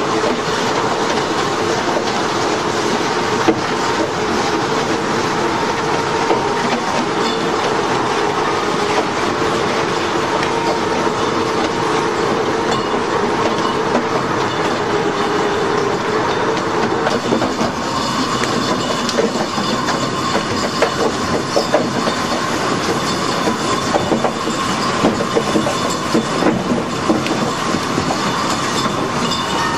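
Industrial crushing machine running steadily: a continuous grinding drone with a held hum, and a crackle of material breaking that gets denser about halfway through.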